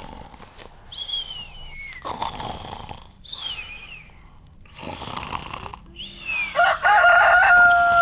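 Snoring with falling whistles on the out-breaths, then a rooster crowing loudly about six and a half seconds in, a long held cock-a-doodle-doo that marks daybreak.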